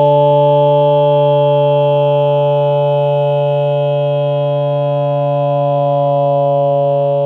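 Loud held tone at one steady pitch with several overtones, not rising or falling, slowly fading.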